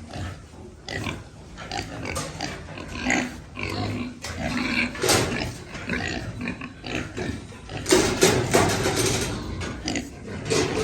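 Pigs grunting, with a louder stretch about eight seconds in.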